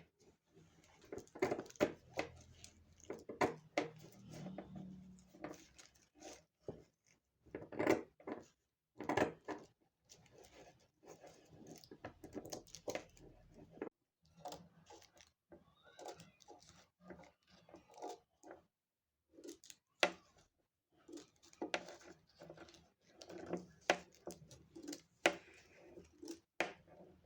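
Tissue paper being handled: irregular rustling and crinkling with sharp clicks and snips, in short bursts separated by pauses.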